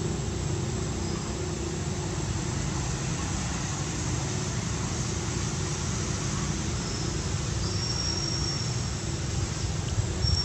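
Steady low rumbling background noise with no clear single event. A thin, high, steady whine comes in for a second or two about two-thirds of the way through.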